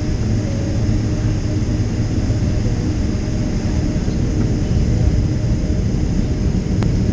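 Steady cabin rumble of a Boeing 767-300ER's engines at low power while taxiing, heard from inside the cabin, with a faint steady hum and a single click near the end.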